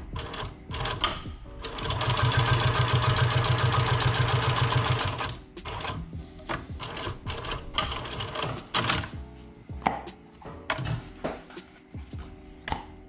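Industrial post-bed sewing machine with a roller presser foot stitching through a leather sneaker upper: a fast, even run of stitches for about three seconds, then scattered single clicks.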